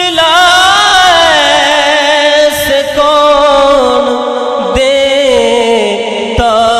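Male voice singing a naat, drawing out a long ornamented melody on held vowels that wavers and slowly falls in pitch, with short breaks about five and six and a half seconds in.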